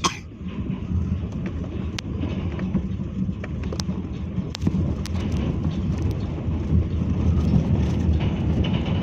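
Vehicle rumble on a rough gravel road, heard from inside a car's cabin: a steady low rumble with scattered sharp clicks and knocks.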